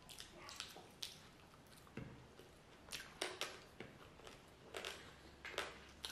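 A person chewing a mouthful of noodles and chicken close to the microphone: irregular sharp mouth clicks, about a dozen in the few seconds, over a faint room hum.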